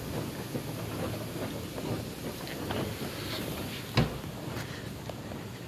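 Steady low hum of a subway station concourse, with small scattered clicks and one sharp knock about four seconds in.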